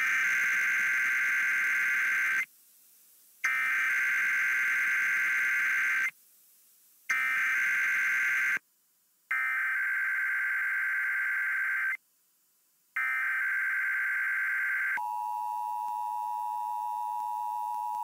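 Emergency Alert System SAME header received over FM radio: five bursts of warbling digital data tones, each about two to three seconds long with a second of silence between them. About fifteen seconds in, the steady two-tone EAS attention signal begins, marking the start of a Required Monthly Test alert.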